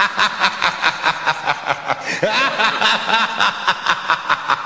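Rapid, regular snickering laughter, about four or five snickers a second.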